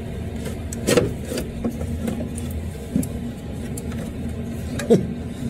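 A few knocks and clicks as the engine computer (ECU) and its wiring harness are handled and moved aside in the engine bay, the loudest about a second in, over a steady low hum.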